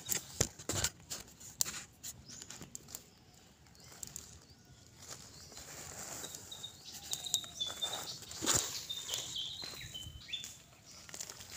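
Knocks and rustling from a phone being handled, then footsteps on dry leaf litter, with a few faint high-pitched chirps from about six seconds in.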